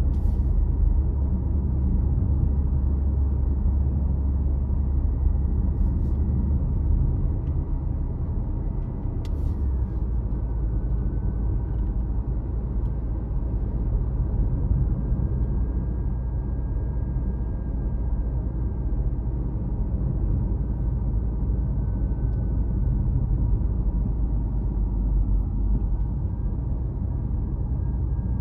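Car driving on a road: a steady low rumble of engine and tyres, with a faint whine that drops in pitch about ten seconds in and rises again near the end.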